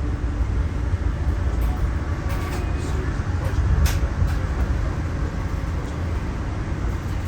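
Passenger rail car in motion, heard from inside: a steady low rumble of wheels on the rails, with a few short clicks and knocks about two and four seconds in.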